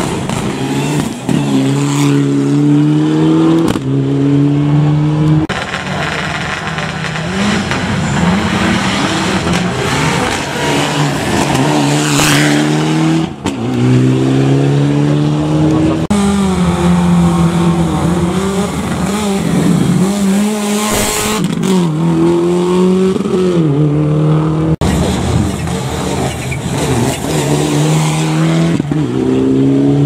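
Mitsubishi Lancer Evolution rally cars' turbocharged four-cylinder engines accelerating hard, one car after another. Each runs up through the gears, with the revs climbing in steps and dropping back at every shift.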